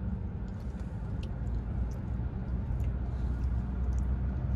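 Low, steady rumble of a car, heard inside its cabin.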